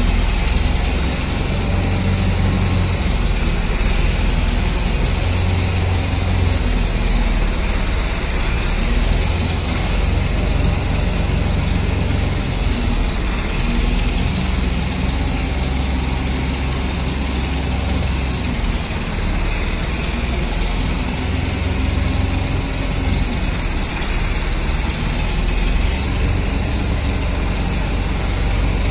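A heavy engine running steadily, with a deep, even rumble.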